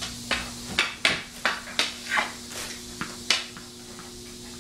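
Hockey stick blade clacking against tennis balls and a hard floor: about ten sharp knocks in quick succession, roughly three a second, stopping about three and a half seconds in.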